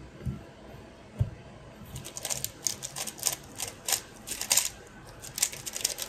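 MoYu Super RS3 M Ball Core magnetic 3x3 speedcube being turned fast in a timed solve: a rapid, uneven run of plastic clicks and clacks starting about two seconds in, after a couple of soft knocks.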